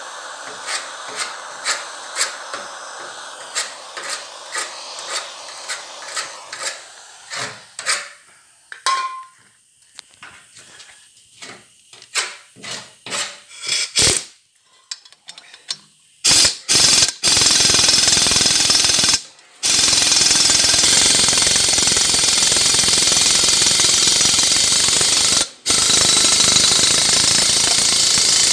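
Propane torch hissing faintly on a rusted exhaust-manifold bolt, with light clicks about twice a second, then scattered handling clicks. Then a pneumatic impact wrench fires in a few short blips and runs loud and hard in long bursts, stopping briefly twice, on the seized manifold bolts of the old Bombardier engine block.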